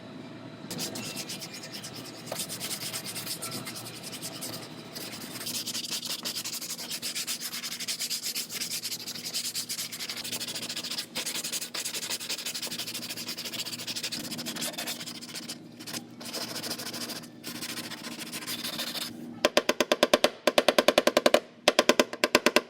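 Sanding on the steel cab corner of a pickup as the pulled-out metal is cleaned up for body filler, a steady rasping hiss. Near the end a much louder, fast run of rapid strokes takes over.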